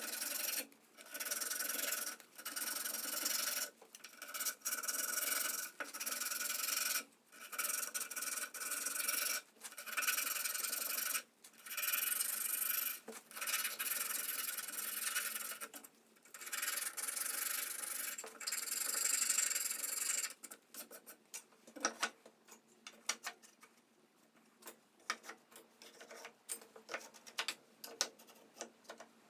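A hand tool worked over pine in about a dozen long rasping strokes, each a second or two with short breaks between, then, about twenty seconds in, the strokes stop and a run of light clicks and taps follows.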